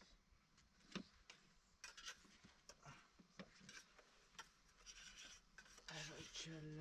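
Faint handling noise: scattered light clicks and rubbing, with a short pitched sound near the end.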